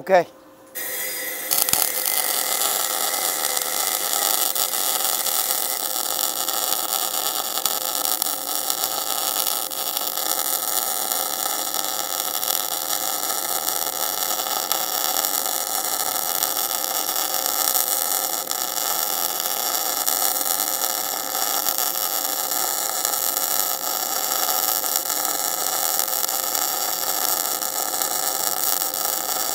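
MIG welding arc from a MIG 250 IGBT inverter welder running on CO2 shielding gas, laying a steady bead on a steel T-joint. The arc sizzles evenly without a break, starting suddenly about a second in; the welder has tuned the settings by ear to this sound and judges it right.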